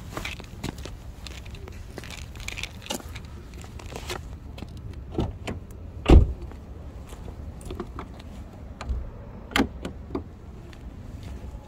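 Irregular clicks, knocks and rustling from a handheld camera being moved around a parked car, over a low rumble, with one heavy thump about six seconds in.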